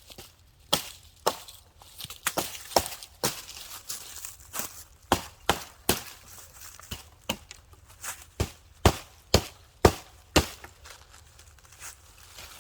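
Wood being chopped: a run of sharp, uneven strikes, roughly one to two a second.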